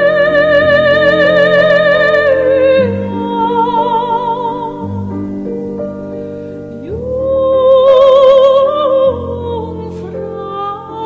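Background music in an operatic style: a voice holds long notes with vibrato over sustained chords, swelling to its loudest about two-thirds of the way through.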